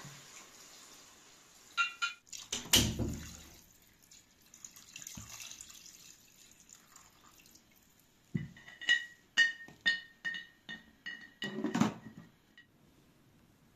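Water poured from a ceramic jug into a pot of chicken broth, with a sharp knock about three seconds in. Near the end, a glass pot lid clinks against the pot's rim about ten times in quick succession, each clink ringing briefly.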